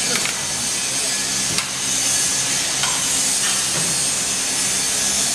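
Horizontal stretch wrapping machine running: a steady hum and hiss, with a few light clicks.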